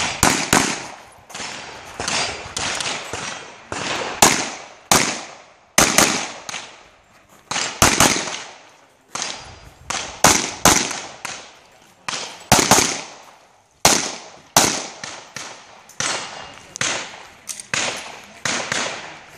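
A pistol firing a long string of single shots and quick pairs, about one to two a second, each a sharp crack with a short echo.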